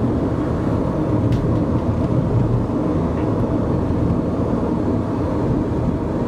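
Steady road and engine noise of a car driving along, heard from inside the moving car: a dense, even low rumble with no let-up.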